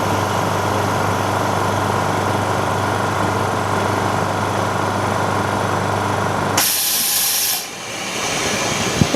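Vacuum pump of an OCA vacuum laminating machine running with a steady hum during the laminating cycle. About six and a half seconds in, the hum stops and air vents with a loud hiss for about a second as the cycle ends, followed by a click near the end.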